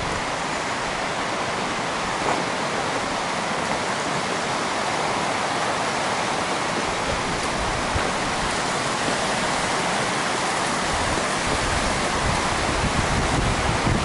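Steady rush of flowing water. Gusts of wind buffet the microphone in the last few seconds.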